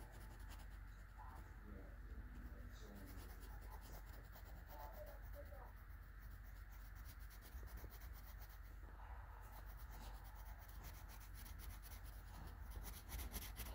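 Faint scratching of a graphite pencil sketching on lined notebook paper, in short strokes now and then, over a steady low hum.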